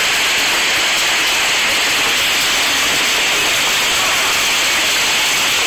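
Large hailstones and heavy rain pelting the ground: a dense, steady hiss of many impacts.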